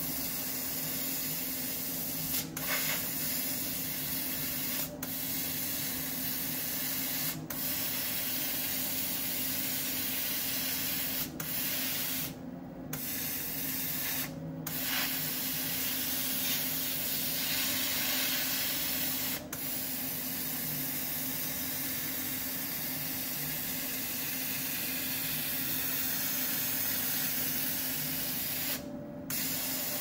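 CO2 laser cutter's air assist hissing steadily at the nozzle while the laser cuts plywood, over a steady low hum. The hiss drops out briefly several times.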